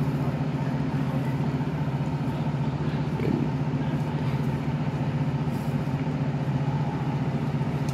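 Heavy work-vehicle engine idling steadily, a constant low drone with a fast even pulse.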